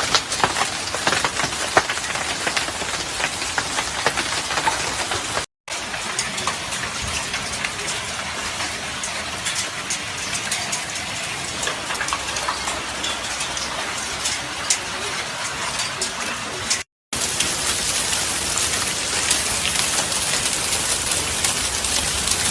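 Volcanic lapilli from Etna falling: a dense, steady patter of countless small stones striking hard surfaces. It breaks off briefly twice.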